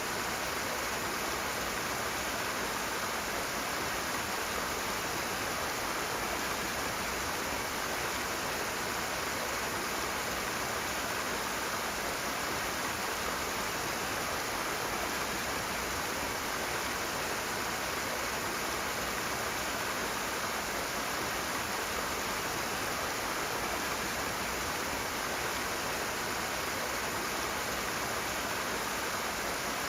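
Rushing water, a steady unbroken hiss spread evenly from low to high pitch.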